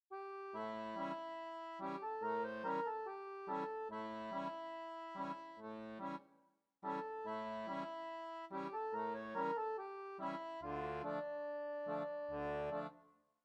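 Instrumental background music: a bright, held melody over a bouncing bass line. It cuts out for about half a second roughly six seconds in, then starts again, and fades near the end.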